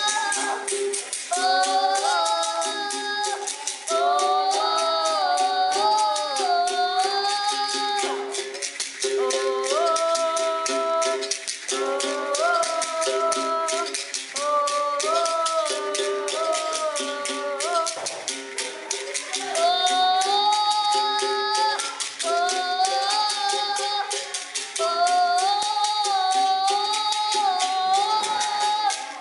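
A child singing a capoeira song in phrases while playing the berimbau: the stick strikes the steel string in a steady rhythm over the gourd-resonated note, and the caxixi basket rattle shakes with each stroke.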